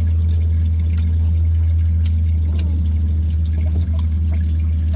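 Boat livewell pump running, water pouring and trickling into the tank over a steady low hum.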